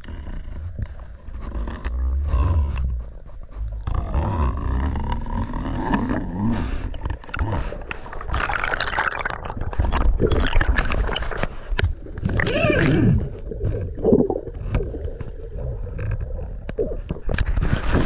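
Underwater sound through a submerged camera: muffled water noise with irregular gurgling of air bubbles rising from a diver.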